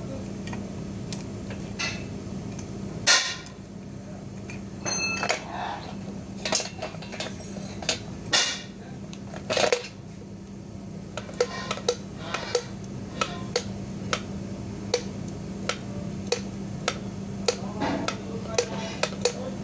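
Metal clinks and taps as a car starter motor's armature is handled in a steel fixture, with a few louder clanks in the first half and a run of sharp ticks, about two a second, from about halfway through. A steady low hum runs underneath.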